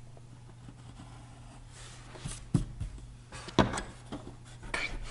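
Pencils scratching on paper as two people draw, with a few light knocks of hands or pencils on the paper and table, the sharpest about two and a half and three and a half seconds in.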